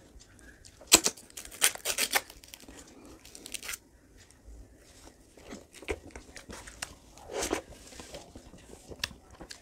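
Ice cream wrapper being torn open and crinkled by hand: a run of sharp rips and crackles in the first four seconds, then quieter, scattered rustles.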